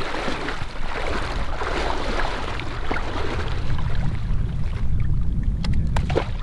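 Water sloshing and splashing as people wade in a river handling Atlantic salmon in nets, with wind rumbling on the microphone, heavier from about four seconds in. Near the end there are sharp splashes as a salmon drops from a net into the water.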